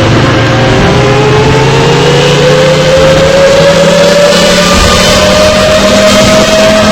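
Warning siren winding up: one strong tone rising slowly and steadily in pitch, over a low steady hum.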